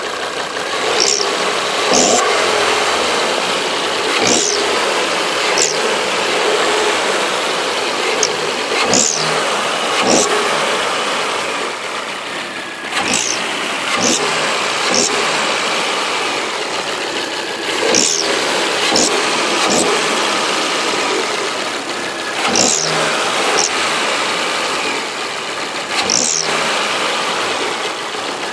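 Volvo V70 engine running steadily with a strange noise: short, sharp, high-pitched clicks that recur irregularly, often in pairs, every second or two over the engine sound.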